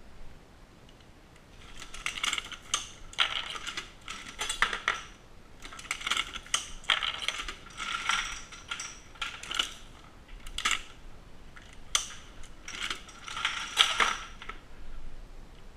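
Dillon SL900 progressive shotshell reloading press being cycled by hand: bursts of metallic clicking, clattering and jingling each time the handle is worked, starting about two seconds in and coming every couple of seconds.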